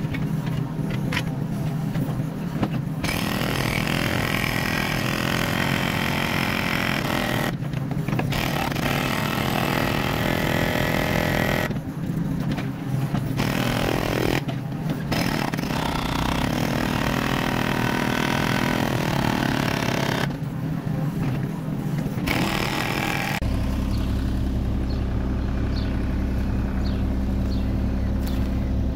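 Kubota mini excavator's diesel engine running steadily, with long stretches of loud rushing noise as the machine works under load. About 23 seconds in it settles to a steadier engine note.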